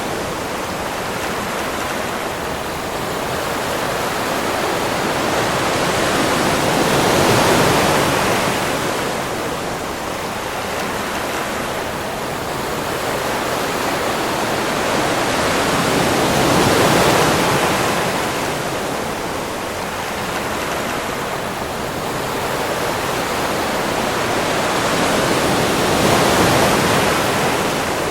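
Sea waves washing onto a beach: a continuous rush of surf that swells and eases about three times, roughly every nine seconds.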